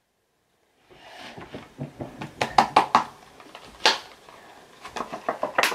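Hands handling slime and gold flakes: a run of small sharp clicks and crackles that starts about a second in and grows denser near the end.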